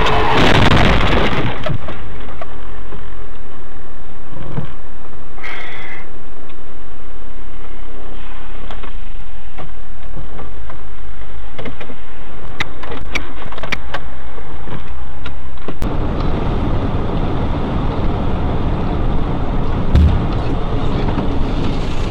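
Dashcam audio from inside a car: steady engine and road noise, with a loud burst of noise about a second in. About sixteen seconds in it switches abruptly to a truck-cab camera's rumbling engine and road noise with a few thumps.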